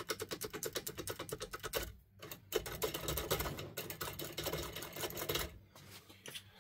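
Decoder Topolino pick being rocked back and forth in a Dierre Neos lock cylinder under tension, clicking rapidly at about ten clicks a second. The clicking pauses briefly about two seconds in, resumes as denser rattling, and fades near the end.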